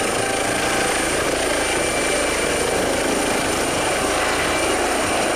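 Steady helicopter rotor sound with a thin high whine, cut off suddenly at the end.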